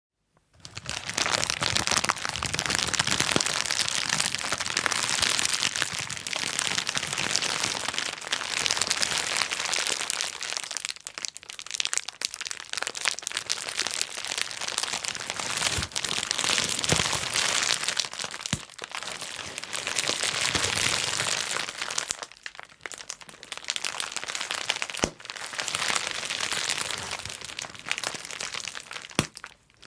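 Bubble wrap being popped: many sharp pops in quick, dense succession, with brief lulls about a third and three quarters of the way through.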